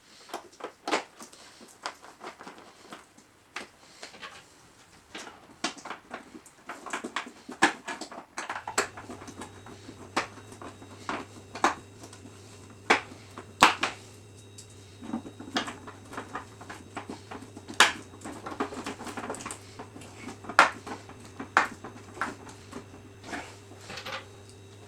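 Irregular sharp clicks and knocks, as of hard parts being handled and set down, with a low steady hum coming in about nine seconds in.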